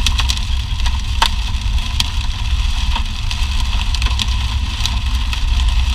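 Steady low rumble of a car driving, with scattered sharp clicks.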